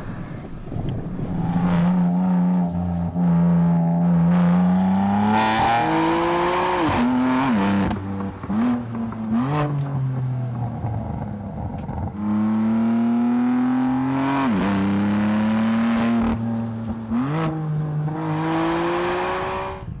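BMW M3 engine and exhaust under hard acceleration, the note climbing in pitch and dropping sharply at each quick upshift, several times over.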